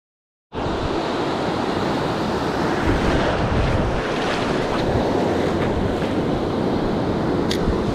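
Silence for about half a second, then the steady wash of breaking ocean surf with wind buffeting the microphone. A brief high tick sounds near the end.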